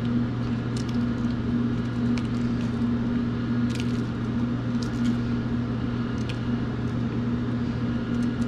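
Steady low hum of kitchen machinery, with scattered crisp snips of kitchen scissors cutting dried chilies into pieces.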